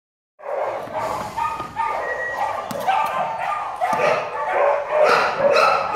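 Dogs barking and yipping almost without a break, starting about half a second in.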